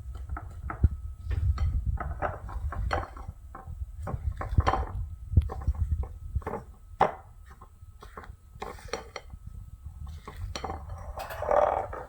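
A utensil stirring dry cake ingredients (almond flour, coconut flour, sweetener, baking powder) in a mixing bowl: irregular clinks and scrapes against the bowl.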